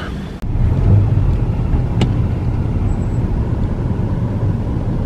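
Steady low rumble of a car on the move, heard from inside the cabin, with one faint click about two seconds in.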